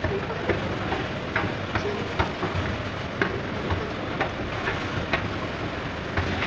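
Footsteps climbing the metal steps of a stopped escalator, about two sharp steps a second, over a steady background rumble.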